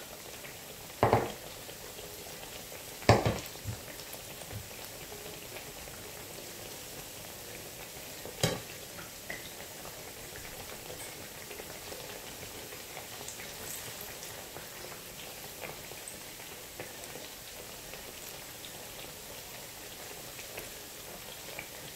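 Slices of ripe plantain frying in hot oil with a steady sizzle. A few sharp knocks sound over it, about 1, 3 and 8.5 seconds in.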